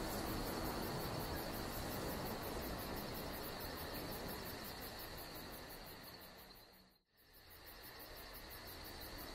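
Crickets chirping in a steady rapid pulse over an even hiss, a night-ambience bed. It fades out to near silence about seven seconds in, then fades back up.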